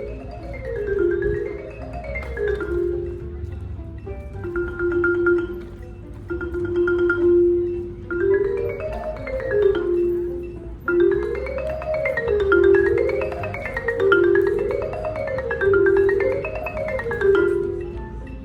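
Live music played on a mallet percussion instrument: quick runs of notes climbing and falling again and again, with a stretch of long held notes about a quarter of the way in.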